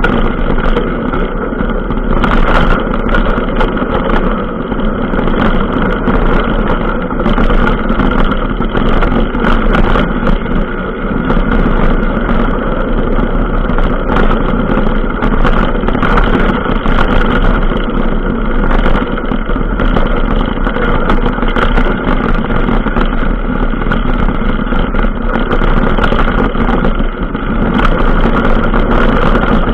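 A motor vehicle's engine runs steadily on a rough dirt track, heard from a camera mounted on the vehicle, with frequent short knocks and rattles from bumps.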